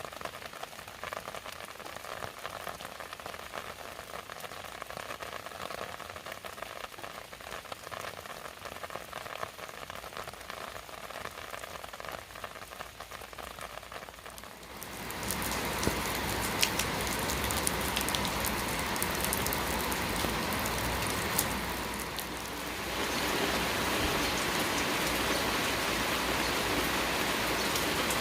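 Steady rain falling, which becomes much louder and fuller about halfway through.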